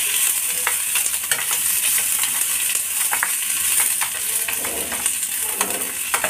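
Onions, green chillies and garlic sizzling in oil in a steel pan while a spatula stirs them, with a steady hiss and frequent scrapes and taps of the spatula against the pan.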